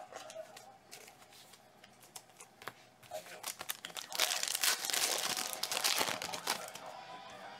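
Foil wrapper of a 2019 Certified football card pack being torn open and crinkled by hand. The crinkling starts about three and a half seconds in, after a few light clicks. It is loudest over the next three seconds, then dies away.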